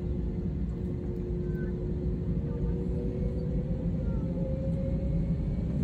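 Jet airliner's engines heard from inside the cabin: a steady low rumble with a humming tone that starts to rise slowly about two seconds in as the engines spool up for the engine check before takeoff.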